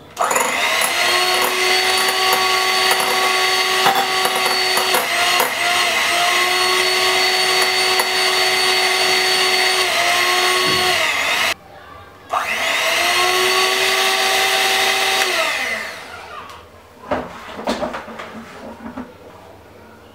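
Electric hand mixer beating egg whites to stiff peaks in a glass bowl, its motor whining steadily. It cuts off about eleven and a half seconds in, starts again a moment later and winds down near the end, followed by a few light knocks.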